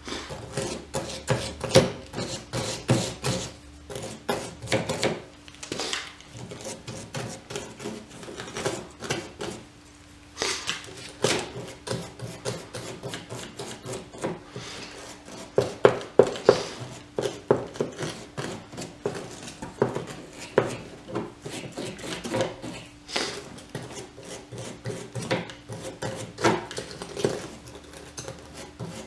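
Irregular scraping and rasping strokes of hand-cleaning the splined, threaded wiper pivot studs, done so the new arms' nuts will bite properly on the shredded splines.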